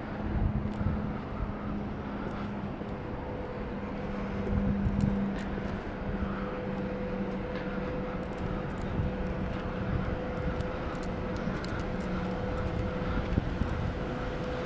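A steady mechanical engine drone with a low hum. A second, higher steady hum joins about three seconds in, and the low hum fades in the second half.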